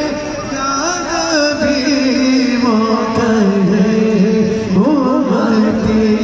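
A man singing a naat, an Urdu devotional praise song, into a microphone. His voice winds through long ornamented phrases over a steady low held drone.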